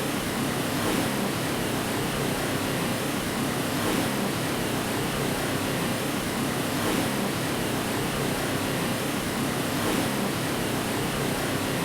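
Steady white noise: an even, unbroken hiss, used to lull a baby to sleep.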